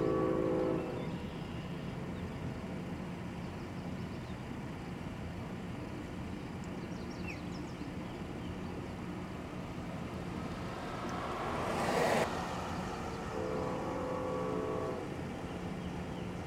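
Background traffic with a steady low hum. A horn sounds a chord of several tones briefly at the start and again for under two seconds near the end, and a passing vehicle's noise swells to a peak about twelve seconds in, then cuts off suddenly.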